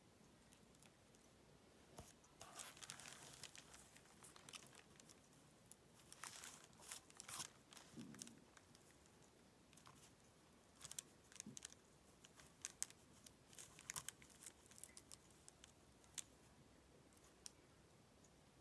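Faint rustling and crinkling of fabric scraps and the paper pattern as hands press and shift pieces into place, in several short spells with scattered small ticks.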